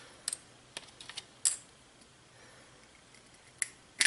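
Fingers picking and snapping pieces of hard shell off a large Chinese White goose egg: a few sharp crackling clicks in the first second and a half, a pause, then two more near the end.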